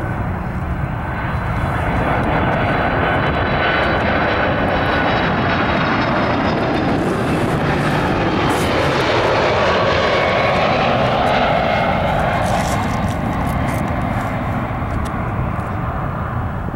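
Delta Boeing 767-300 jet airliner on landing approach, its twin turbofan engines giving a continuous roar with whining tones that slide in pitch. The sound swells as the plane passes close by, loudest a little past the middle, then eases.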